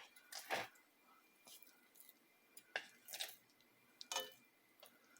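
Marinated chicken drumsticks being laid one by one into a dry frying pan: several soft knocks and squishes about a second apart.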